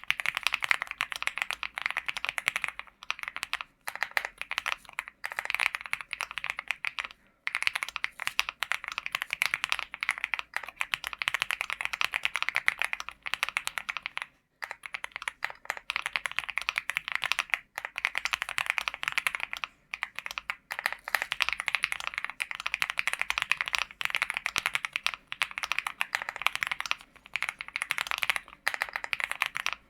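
Continuous fast typing on a LEOBOG Hi75 mechanical keyboard fitted with Akko CS Jelly Black linear switches: a dense stream of key clacks, broken by brief pauses several times.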